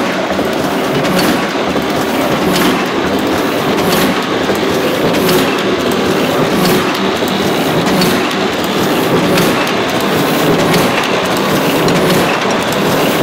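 Heidelberg Original Cylinder 48 x 66 die-cutting press running, a steady mechanical clatter with a sharp clack repeating about every second and a third.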